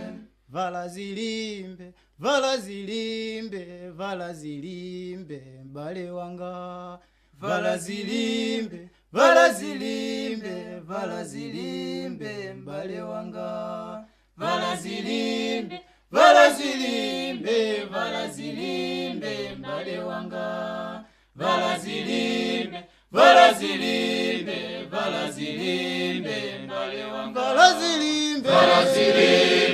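Unaccompanied singing of a slow chant-like hymn, sung in phrases with short breaks between them.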